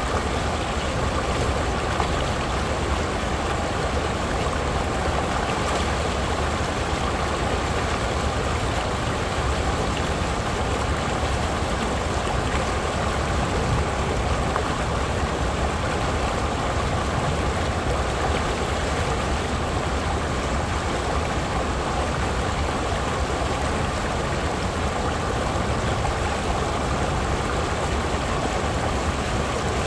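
Shallow creek pouring over the edge of a low concrete slab: a steady, unbroken rush of white water.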